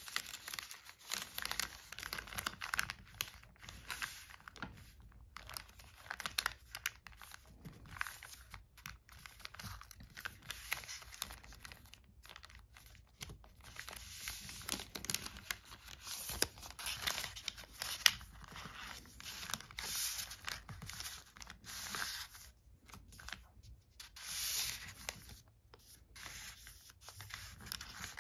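Origami paper rustling and crinkling as hands tuck the flaps of an eight-pointed paper star together and press the folds flat, in uneven bursts, with one sharp tap about two-thirds of the way through.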